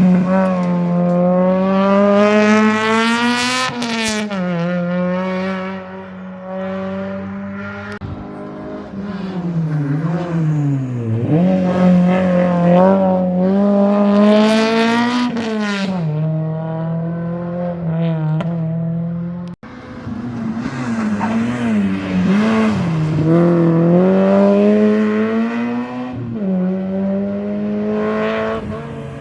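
Rally cars at full throttle on a special stage, engines climbing and dropping in pitch through gear changes and lifts for corners. About two-thirds of the way through, the sound cuts abruptly to another car.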